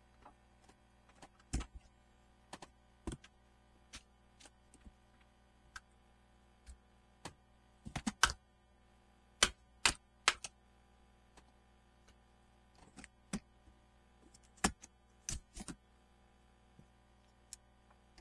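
A series of irregular, sharp light clicks and taps, a few noticeably louder and some in quick clusters, over a faint steady hum.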